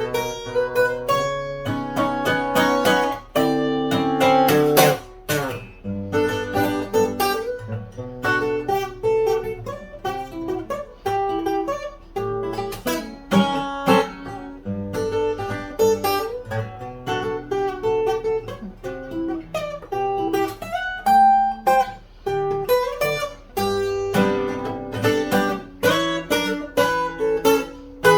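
Solo acoustic guitar in EADGBD tuning with a capo on the 2nd fret, playing a melody of plucked notes over bass notes with occasional strummed chords.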